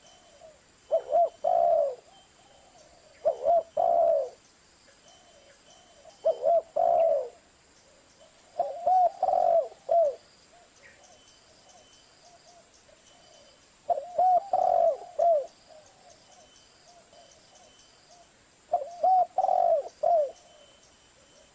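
Spotted dove (tekukur) cooing: six short phrases of low, rounded coos, each phrase a quick run of several notes, repeated every few seconds.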